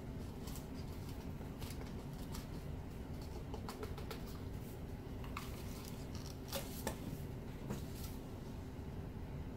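Steady low room hum, with a scattered handful of faint light clicks and ticks.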